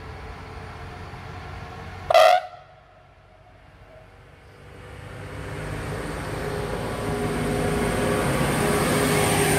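A short, loud train horn blast about two seconds in, then a train approaching and growing steadily louder.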